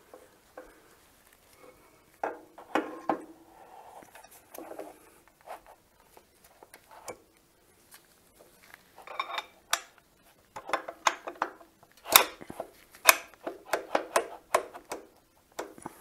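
Metal parts of a planer clinking and knocking as a feed roller and its metal blocks are handled and fitted by hand: irregular sharp taps and rattles in clusters, busiest in the second half.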